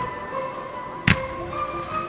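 Music with sustained notes plays while one sharp firework bang goes off a little past halfway through.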